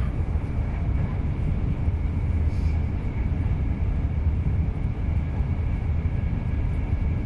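Steady low rumble of outdoor background noise, with a faint steady high tone above it.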